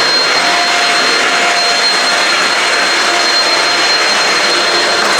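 Shark Rocket corded stick vacuum with DuoClean running steadily: a constant rush of airflow with a thin, steady high whine from the motor.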